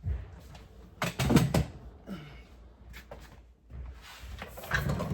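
Knocks and clatter of household items being handled and set down. There is a loud cluster of knocks about a second in and another near the end.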